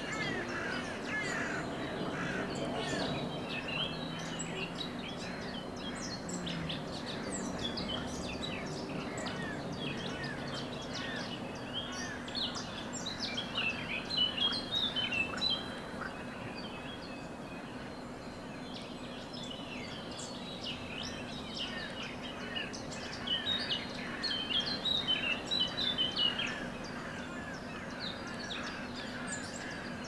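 Dawn chorus of songbirds in a marsh: many overlapping chirps and calls throughout, with a louder rapid song breaking in twice, around the middle and again near the end. A steady low hum runs underneath.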